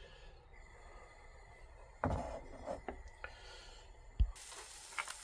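A few soft knocks and clicks of kitchen utensils, then a little over four seconds in a sudden steady sizzle starts as the egg and leftover-curry omelette mixture goes into a hot frying pan.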